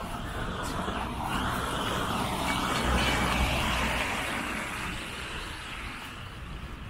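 A car driving past on a wet road, its tyre noise swelling to a peak about three seconds in and then fading away.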